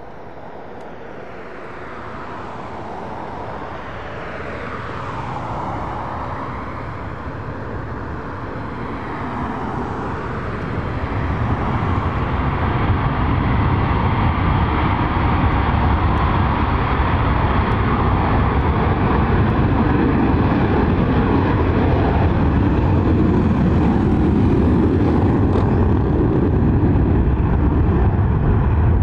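Jet engines of a pair of EA-18G Growlers (twin General Electric F414 turbofans each) run up for a formation takeoff. The noise builds over the first dozen seconds into a steady, loud low rumble through the takeoff roll and lift-off.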